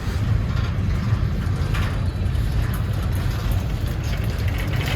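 Diesel freight train running close by: a steady low engine rumble with no change in level.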